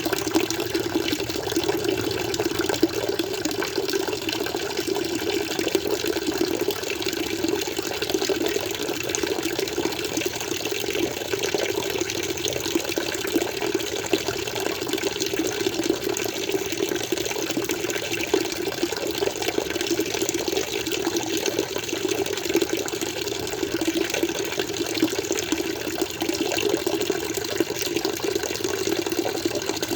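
Water flowing steadily in an aquarium, an even, unbroken sound of running water.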